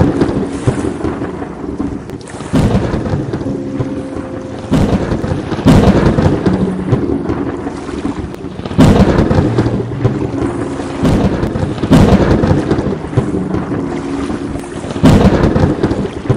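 Thunderstorm with heavy rain: thunderclaps every two to three seconds, each cracking in suddenly and fading into a rumble, over a steady hiss of rain.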